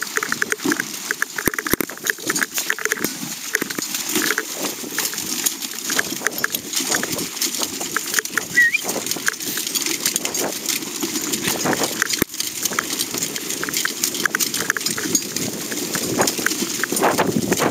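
Dog sled dragged by a running dog team over snowless bog: a continuous scraping and rustling of the sled through heather and wet ground, with irregular knocks and clatter.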